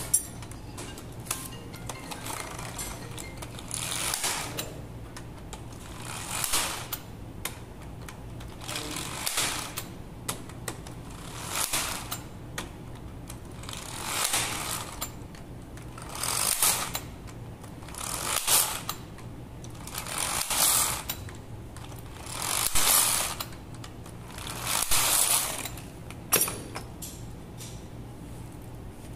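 Cordless electric screwdriver running in about ten short whirring bursts, each roughly a second long and spaced about two seconds apart, as it backs out the clutch spring bolts on a Kawasaki Z1000's pressure plate.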